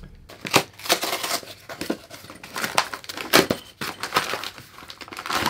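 A small cardboard box and its plastic packaging being handled and opened, with irregular rustling and crinkling and scattered sharp clicks and knocks.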